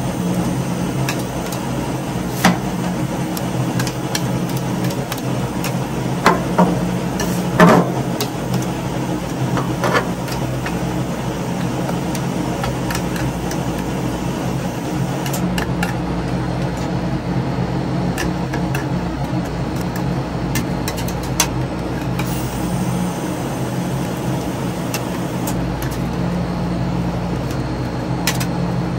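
Metal spatulas knocking and scraping on the frozen plate of a rolled ice cream machine, with a few sharp knocks in the first ten seconds and lighter clicks later, over a steady hum.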